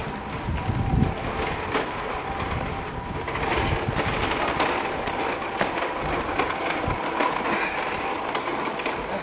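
Outdoor city street ambience: a steady low rumble with many small clicks and knocks and a faint steady tone, like a train or traffic running nearby.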